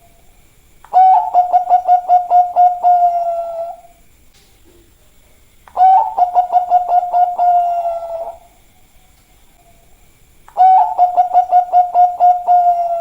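Zebra dove (Bangkok-type perkutut) cooing: three song phrases about five seconds apart, each a quick run of about ten coos at one steady pitch.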